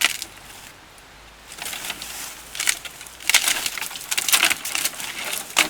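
A thick dead tree branch being bent and broken by hand, cracking and splintering in a run of sharp snaps over several seconds. The clean snap is the sign that the wood is dry enough to burn.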